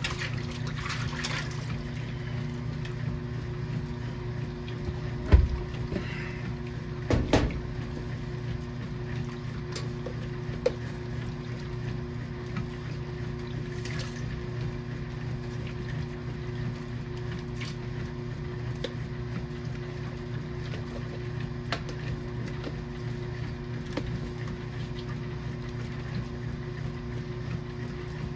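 KitchenAid washing machine running, water moving inside the tub over a steady hum. A few short knocks come about 5 and 7 seconds in.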